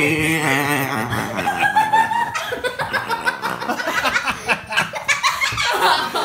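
Several people laughing hard. It opens with one long, wavering laugh, then breaks into choppy chuckles and giggles.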